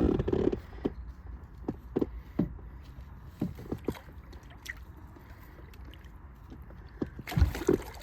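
Scattered knocks and bumps of gear being handled in a small fishing boat, with faint water movement, while a hooked fish is held at the boat's side. A louder cluster of bumps comes near the end.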